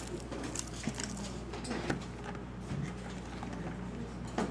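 Rustling of a canvas tote bag being rummaged through, with scattered light clicks and knocks from small boxes handled inside it, over a steady low hum.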